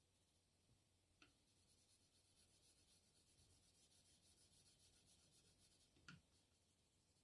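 Faint scratching of a brown coloured pencil shading on drawing paper in quick back-and-forth strokes. There is a small tap about a second in and a sharper one near the end.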